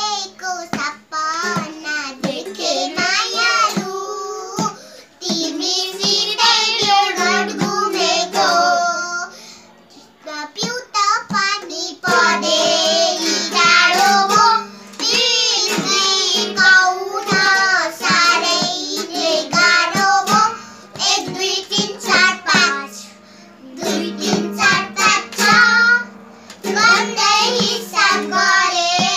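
Young children singing a Nepali song, with a toy ukulele strummed and a small madal hand drum played along. The singing breaks briefly twice between phrases.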